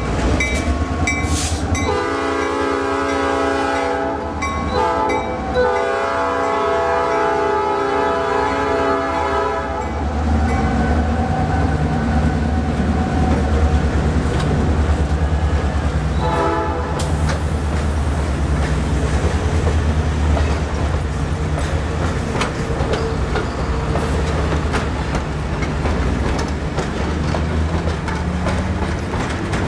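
Air horn of a pair of EMD GP38-2 diesel locomotives blowing as the excursion train departs: a few short blasts, then long blasts for about eight seconds, and one more short blast midway. Under it the locomotives' diesels rumble past, louder after the horn stops, and the passenger cars follow with wheels clicking over the rail joints.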